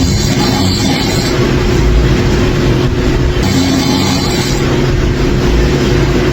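A person snoring loudly: a low, rough snore alternating with a hissing breath, one cycle about every three and a half seconds.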